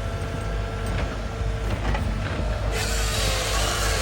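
A bulldozer's diesel engine running steadily while working. A loud, hissing rush of noise joins it about two-thirds of the way in.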